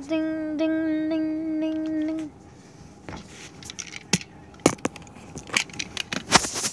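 A person humming one steady, level note for about two seconds, with a brief break just after it starts. Then come scattered light clicks and taps of wooden toy pieces being handled.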